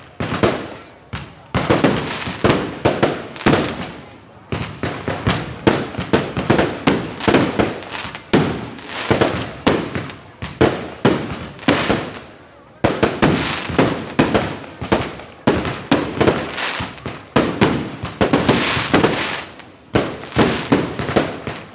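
Fireworks going off in rapid, overlapping bangs and crackles, with a few brief lulls between volleys.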